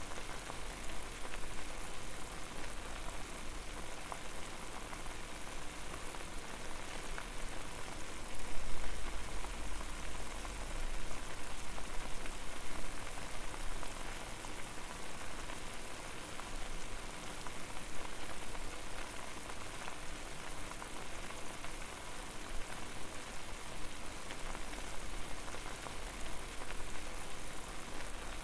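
Water boiling over a flame: a steady, dense bubbling made of many small pops, with a low rumble underneath that swells briefly about eight seconds in.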